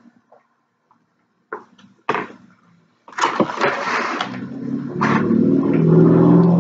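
Styrofoam takeout clamshell being shifted and pressed on the table. A few light clicks come first, then about three seconds in a loud, drawn-out styrofoam creak and squeak that keeps going.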